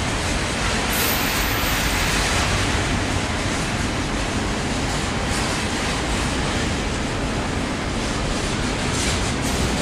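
Container freight train's wagons rolling past at steady speed: a continuous noise of steel wheels on the rails.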